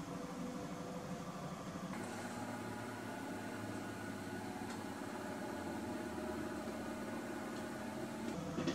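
A steady hum made of several held tones, like a running motor or appliance, with a slight change in its pattern about two seconds in.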